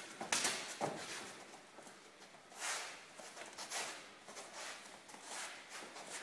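Two people's feet shuffling and scuffing on foam gym mats, with the rustle and swish of sleeves and soft slaps of arm contact during Wing Chun chi sau sparring. The sounds come in irregular short bursts, with a longer swish a little before the middle.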